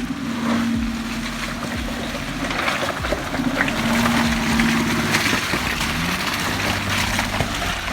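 Off-road SUV engine running under load, its pitch rising and falling a little near the end, with a steady crackle of tyres working over rock and dirt.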